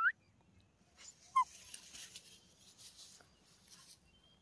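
German shepherd puppy whimpering: a high whine that lifts upward and breaks off right at the start, then a single short yelp about a second and a half in. A rustling of grass or fur close to the microphone follows for a few seconds.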